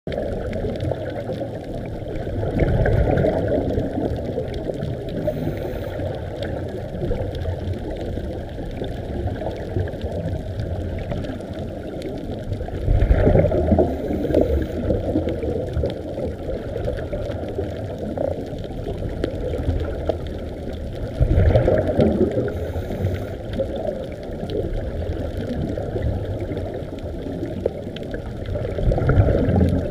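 Scuba divers' exhaled air bubbling out of their regulators, heard underwater: four louder bursts of bubbles several seconds apart over a steady low rush of water noise.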